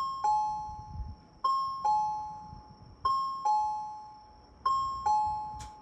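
Resonant Systems bus turn-warning chime: a two-tone ding-dong, a higher note then a lower one, each ringing and fading, repeating about every one and a half seconds to signal that the bus is turning left or right.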